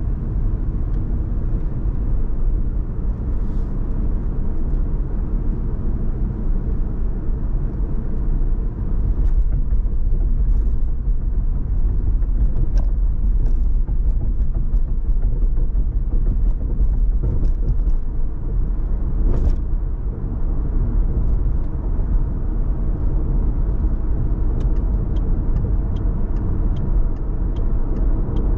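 Car driving on city roads: steady low road and engine rumble, with scattered light clicks and a run of quick, even ticks near the end.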